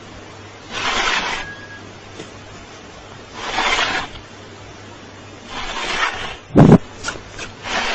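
An animal's breathy blowing or hissing, three bursts of about half a second each, roughly two and a half seconds apart. A sharp loud thump and a few clicks follow near the end.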